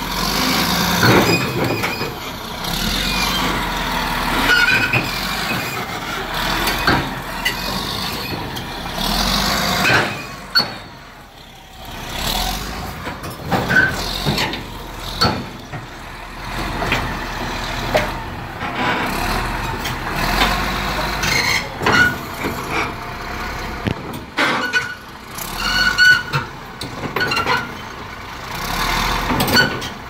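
Heavy diesel equipment running, with irregular metallic clanks and short squeaks. The sound dips briefly about a third of the way in.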